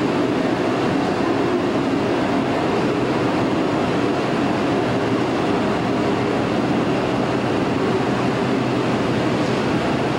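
Steady rumble and hum of a small electric subway car running on its rails as it pulls away into the tunnel, heard across the underground station, with a faint steady tone under the noise.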